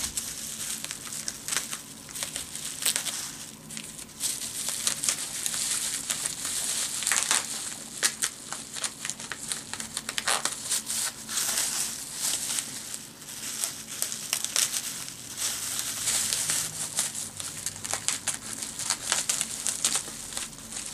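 Bubble wrap being handled and pulled at, a continuous crinkling and crackling with sharper snaps now and then.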